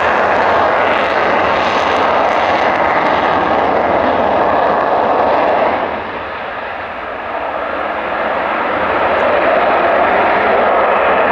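Eurofighter Typhoon's twin Eurojet EJ200 jet engines, a loud steady rushing noise that dips about six seconds in and builds back up a couple of seconds later.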